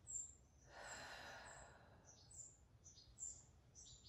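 A soft, long exhale about half a second in, lasting over a second, as a person breathes out during a slow Pilates pelvic rock. Small birds chirp faintly in the background, about two short high chirps a second.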